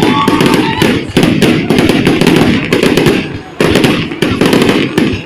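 Fireworks going off in a dense, continuous barrage of loud bangs and crackling pops, with a brief lull a little past the middle before the bursts resume. Voices of a crowd can be heard under the bursts.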